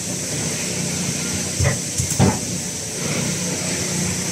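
An 80-ton tilting thermoforming machine running over a steady hum and hiss while it makes PP cups. About two seconds in comes one pair of short thumps with a hiss of air, about half a second apart, as the machine works through its forming cycle.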